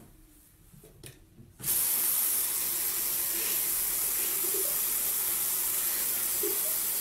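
Bathroom sink faucet turned on about a second and a half in, then tap water running steadily into the basin and onto a cat lying in it.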